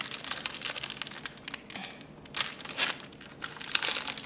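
Foil wrapper of a 2013 Topps Prime football card pack crinkling and tearing as it is opened by hand, in irregular crackly bursts with a few louder rustles late on.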